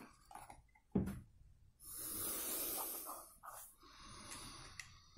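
Plastic building bricks being handled: a single click about a second in, followed by a soft hissing rustle lasting about a second and a half, and fainter rustling after it.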